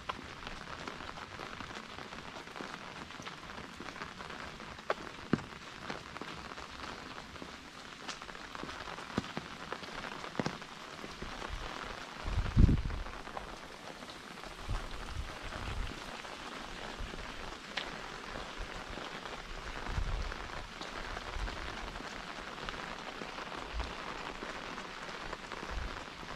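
Steady rain falling and pattering on surfaces, with scattered sharp drop taps and a single low thump about halfway through.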